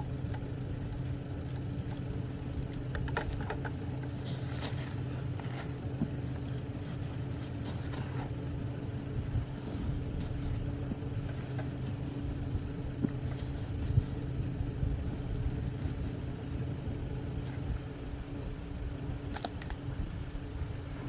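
An engine running steadily, an even low hum, with faint intermittent scrapes and clicks of a knife working the hide off a beef carcass.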